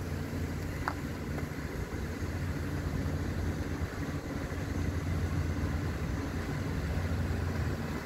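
Engine and road noise of a slowly moving car, heard from inside: a steady low hum.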